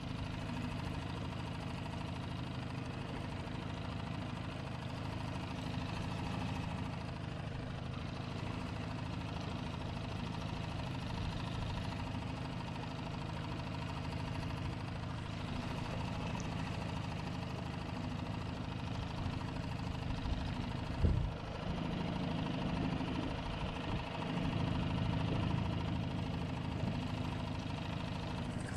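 Small Honda four-stroke outboard motor running steadily at slow trolling speed. A single sharp knock about three-quarters of the way through is the loudest sound.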